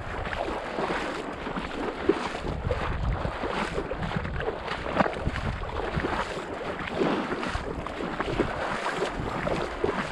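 A person wading through shallow marsh water and reeds, with irregular sloshing and splashing, and wind buffeting the microphone.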